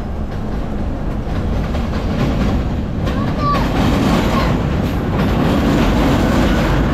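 Vintage BMT AB Standard subway car running on elevated track, a steady rumble with wheels clattering over rail joints. From about three seconds in a second subway train passes on the adjacent track and the noise grows louder, with a brief wheel squeal.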